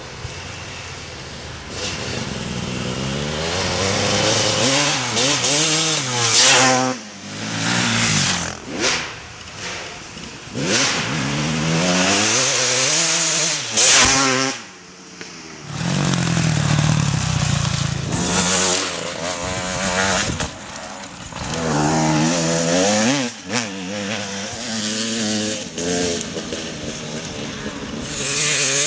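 Off-road racing engines revving hard, pitch climbing and dropping again and again as machines accelerate, shift and pass one after another, with especially loud passes about six and fourteen seconds in.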